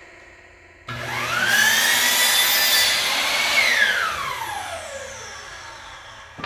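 Electric miter saw started with a rising whine, cutting through a wood board for about two seconds, then the motor winding down in a long falling whine. A short knock near the end.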